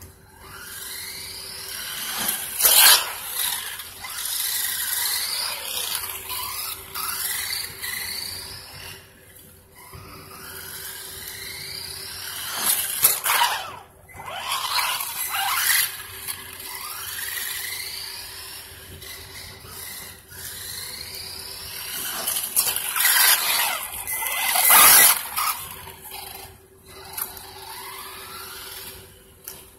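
Small electric RC truck's motor and drivetrain whining up in pitch again and again as it accelerates, broken by a few louder, harsh bursts.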